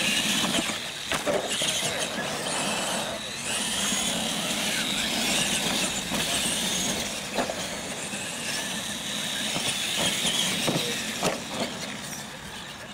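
Radio-controlled monster trucks racing on dirt: motor and gear whine rising and falling with the throttle over the noise of tyres on loose dirt, with a few sharp knocks as a truck lands off a jump. The sound fades near the end as the race finishes.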